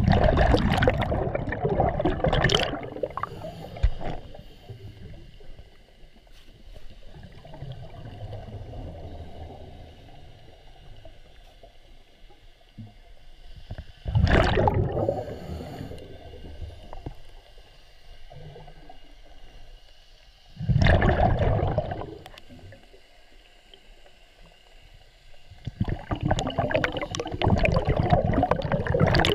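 A diver's exhaled bubbles rushing past the microphone underwater, heard as four loud gurgling bursts several seconds apart, with faint low water noise in between.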